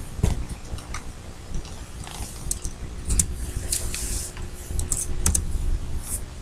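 Computer keyboard and mouse clicks: a scattered handful of sharp clicks, most of them after the first couple of seconds, over a steady low rumble.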